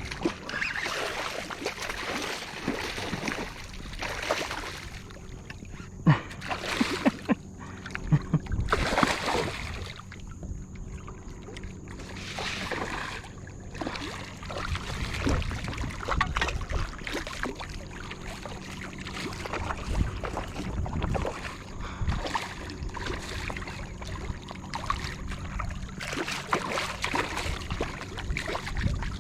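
Water splashing and lapping around a kayak, with scattered knocks and clicks that are loudest a few seconds in.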